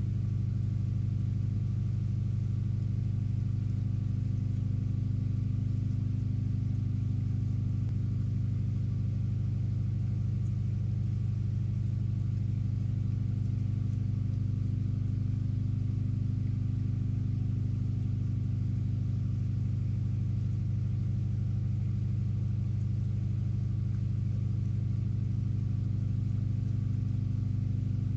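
A steady, unchanging low hum with a few fainter higher tones over it; no separate knocks or calls stand out.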